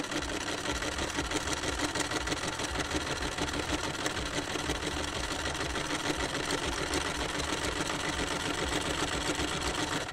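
Chaika 144A household sewing machine running steadily at speed, stitching through two layers of denim with a fast, even rattle of the needle mechanism. It stops abruptly near the end.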